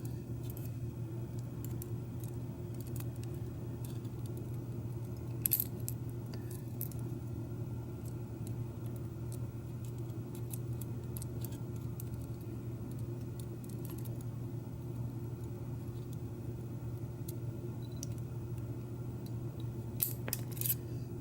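Small metallic clicks and taps of lock pins, springs and a pick being handled while reloading a Schlage F-series lock cylinder, over a steady low hum. A sharper click comes about five and a half seconds in, and a few more near the end.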